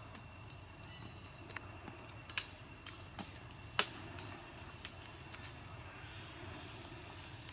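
Quiet outdoor background with a faint steady high hum and scattered sharp clicks, the two loudest about a second and a half apart near the middle.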